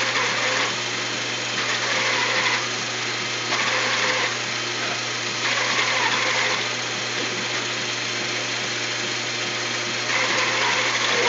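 Small electric motor on a soccer robot spinning its ball-handling roller in short runs of about a second, every couple of seconds, over a steady low hum.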